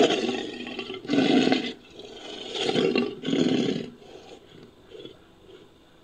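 Made-up American lion sound effect built from big-cat roar recordings: a roar ends just after the start, followed by three short roars about a second apart, then it fades to faint grunts.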